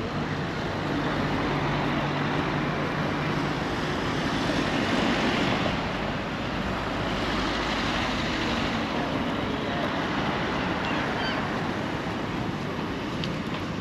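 Street traffic noise on a town road, a steady rush of passing vehicles. It swells as a van drives close by around the middle.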